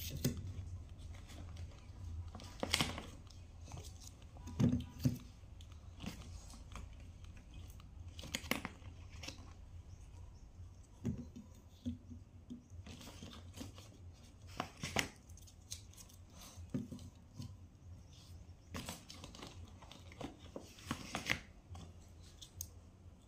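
Plastic packaging crinkling and rustling in short, irregular bursts as small plastic jelly cups are pulled from a plastic bag and set down on a plate, with a low steady hum underneath.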